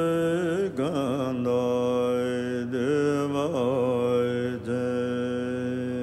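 Buddhist mantra chanting by a voice holding long, steady notes, with short wavering turns of pitch about a second in, again around three seconds in, and once more near four and a half seconds; after the first turn the held note settles lower.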